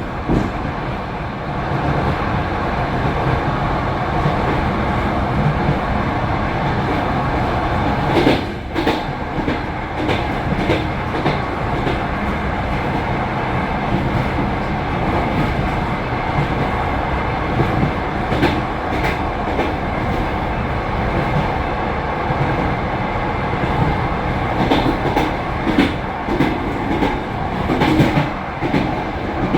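Passenger train wheels clattering over rail joints, heard from the window of the last car, over the steady rumble of the running train. The clacks come in scattered clusters rather than a constant beat.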